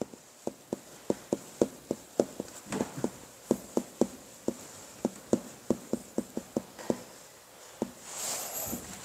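Marker tapping and scratching on a whiteboard while writing: a quick run of short ticks, about three or four a second, with a longer scratchy stroke near the end.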